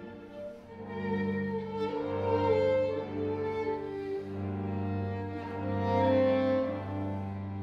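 Clarinet with a string quartet of two violins, viola and cello playing an arrangement of an Armenian folksong in long held notes, swelling louder twice.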